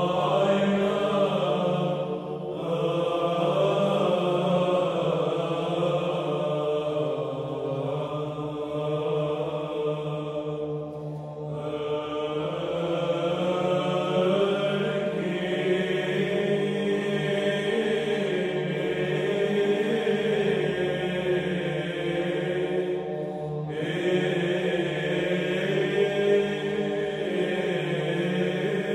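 Chanted vocal music: low voices hold long notes that shift slowly in pitch, with short breaks between phrases.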